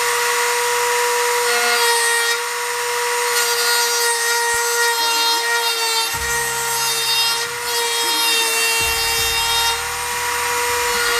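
Handheld rotary tool with a small cutting wheel running at a steady high-pitched whine, grinding through a car's sheet-metal front fender to cut a side-marker hole.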